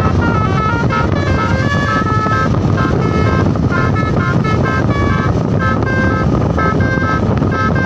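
A bus's multi-tone telolet horn playing a quick melody of short, stepped notes, over a loud low rumble of engine and wind noise.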